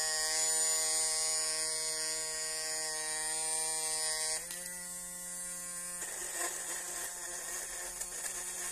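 Small DC motor of a homemade drill whining steadily as its thin bit cuts through a plastic sheet. About four seconds in, the whine shifts in pitch and gets quieter, and from about six seconds a rough scraping noise joins it.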